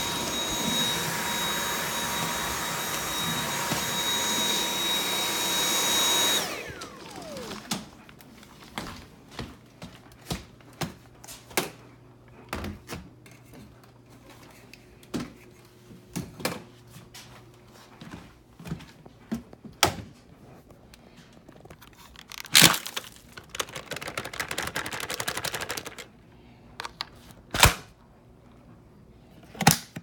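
Dyson V8 cordless stick vacuum with a motorized hard floor head running with a steady high whine, then switched off about six seconds in, its motor winding down with a short falling whine. After that come scattered plastic clicks and knocks as the vacuum is handled, with two sharp clacks later on.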